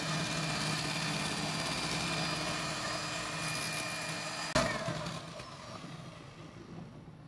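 Electric hand mixer running steadily with a motor whine, its beaters whisking a thin egg, milk and oil batter in a glass bowl. About four and a half seconds in there is a sharp click, after which the motor sound dies away.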